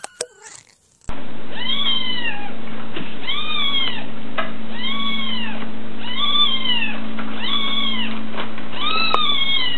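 Kittens meowing. A high meow tails off at the start. After a cut, a kitten meows repeatedly, about six rising-then-falling meows roughly once a second, over a steady low hum.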